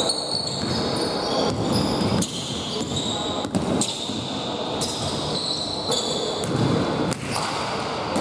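A basketball being dribbled on a hardwood gym floor, with sneakers squeaking as players run and cut, all echoing in a large hall.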